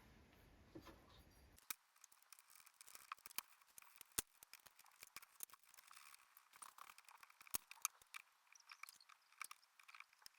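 Faint, scattered small clicks and taps of small parts being handled and fitted together while a motor mount is assembled by hand, a few sharper ticks standing out among them.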